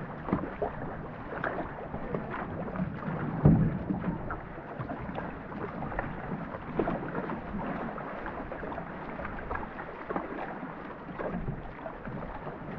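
Canoe paddles splashing and water washing along the hull of a racing canoe, with a steady run of small irregular splashes and one louder thump about three and a half seconds in.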